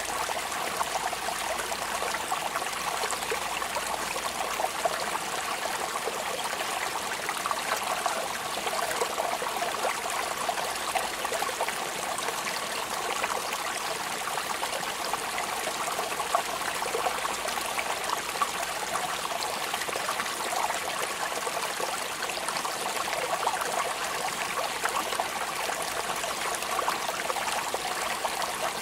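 Steady rain falling: a dense, even hiss made of many small drop sounds.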